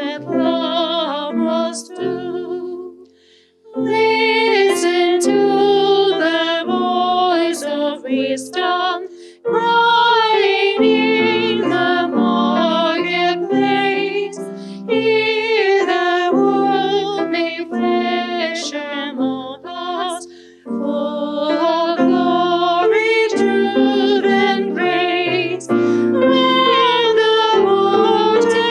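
A woman singing with vibrato over piano accompaniment, with a short break between phrases about three seconds in.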